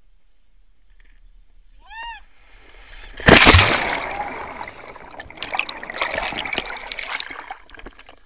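A person plunging into the sea from a cliff: a sudden loud splash of entry about three seconds in, then muffled underwater rushing and bubbling as the camera goes under with him, and choppy sloshing and splashing as he comes back up. A brief high cry, rising then falling, comes about a second before the splash.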